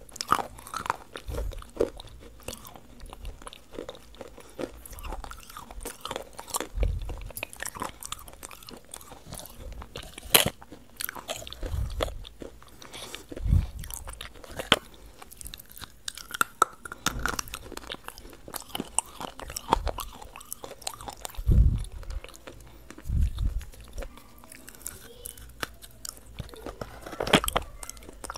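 Close-miked biting and chewing of chocolate-coated bars, with crisp crackling bites and wet chewing at irregular intervals throughout.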